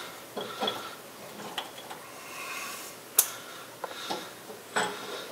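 Light metallic clicks and clinks of an outer pinion bearing being worked loose and pulled by hand from a differential housing, with one sharp click about three seconds in.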